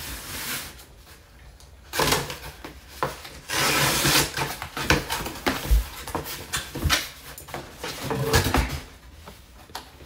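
Cardboard shipping box being opened and its cardboard packing inserts pulled out: cardboard scraping and rubbing with a few sharp knocks, in several bursts.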